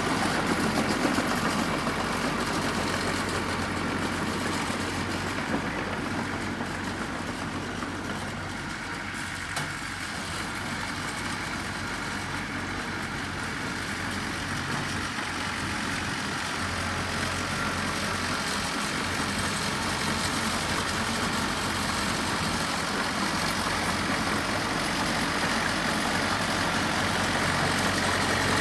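Heavy diesel machinery engine running steadily, easing off a little about a third of the way in and gradually building again toward the end.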